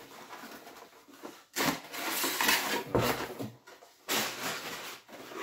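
Cardboard toy packaging being pulled out of its box by hand, scraping and rustling in two long stretches, about a second and a half in and again about four seconds in.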